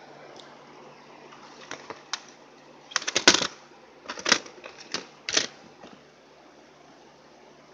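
Plastic CD jewel case being handled and opened: a few light clicks, then bursts of sharp plastic clicks and clatters over the middle few seconds.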